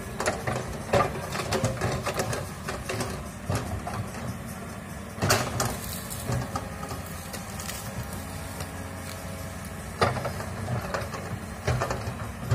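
Komatsu hydraulic excavator's diesel engine running steadily while the boom and bucket work through brush, with sharp knocks and cracks now and then, the loudest about five seconds in and again at ten seconds.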